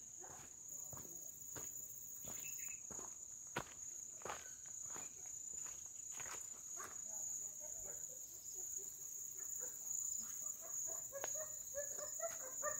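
Steady high-pitched chorus of crickets, with the walker's footsteps on the trail about twice a second.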